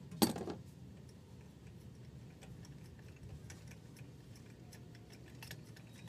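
Hands working at the spark plug leads and boots of a Toyota 4A-F engine that is not running: one sharp click about a quarter second in, then faint scattered small ticks and clicks.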